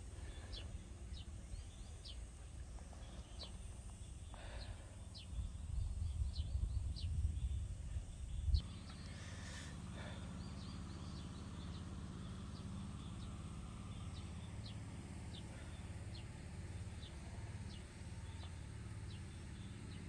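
Outdoor wind rumbling on the microphone, strongest in the first half and stopping abruptly about eight and a half seconds in, over faint short bird chirps repeating throughout.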